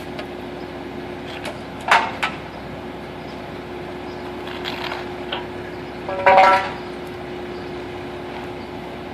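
Concrete truck's engine running steadily under a constant hum. Two short, louder sounds stand out, about two and six seconds in.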